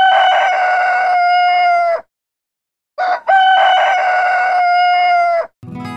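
A rooster crowing twice: two long, loud cock-a-doodle-doo calls about three seconds apart, each ending in a long held note that drops off at the end.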